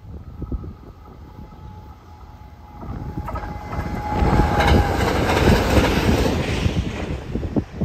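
A JR West 521 series two-car electric train passing at speed. Its running noise builds from about three seconds in, is loudest as it rushes past, and falls away near the end. Wind buffets the microphone throughout.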